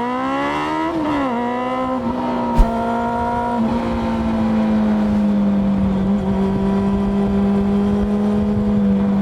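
Honda CB400 Super Four's inline-four engine revving up over the first second, then holding a high, steady note under throttle, the pitch sagging slightly toward the end. A single sharp click about two and a half seconds in.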